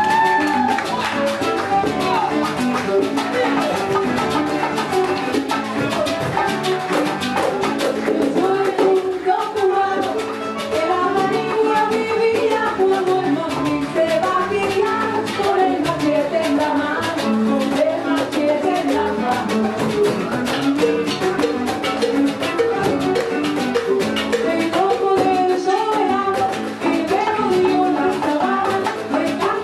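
Live Cuban guajira music: a laúd, bongos and a cajón playing a steady rhythm, with a woman singing over them.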